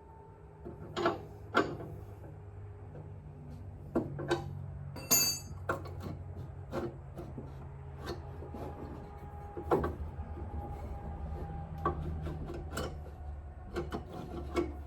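Irregular clanks, knocks and clicks of hand tools and metal parts being worked on a mower's blade-belt tensioner, with one bright metallic clink about five seconds in, over a low steady hum.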